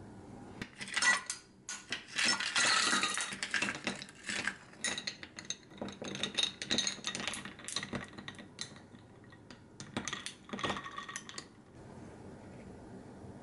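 Ice cubes clinking in a glass: a dense clatter as they go in, then lighter repeated clinks as the iced coffee is stirred with a long stirrer. The clinking stops about twelve seconds in.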